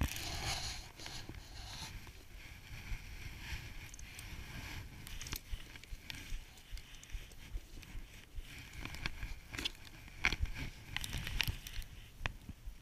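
Close rustling and crackling as a snowboarder sits in the snow and shifts about: jacket fabric brushing and snow crunching right at a chest-mounted camera, with scattered sharp clicks and a low uneven rumble of handling noise.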